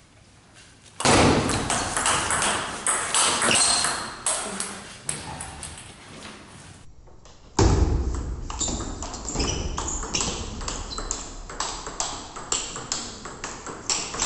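Table tennis rally: the ball clicks sharply off the bats and the table in quick succession. There is a short break about seven seconds in, then another run of quick clicks.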